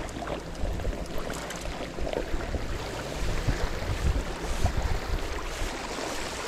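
Small waves lapping at the lakeshore, with wind rumbling on the microphone.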